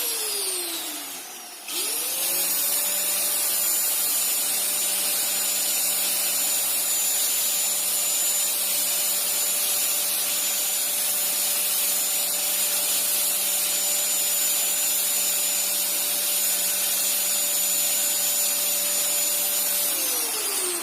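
Angle-grinder motor driving a homemade PVC-pipe vacuum cleaner. It is winding down at the start, is switched on again about two seconds in and runs at a steady high whine with rushing air, then is switched off near the end, its pitch falling as it spins down.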